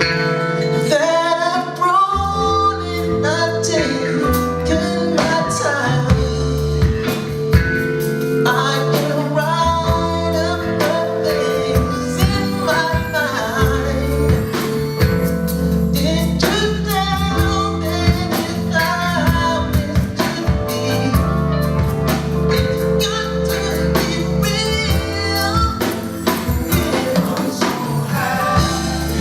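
Live band playing a song with a lead vocal over bass, drums and held chords.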